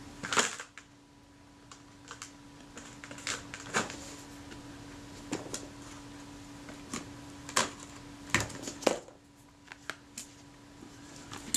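Scattered light clicks and taps of small metal camera parts and tools being handled and set down on a work table, a dozen or so at uneven intervals, over a faint steady hum.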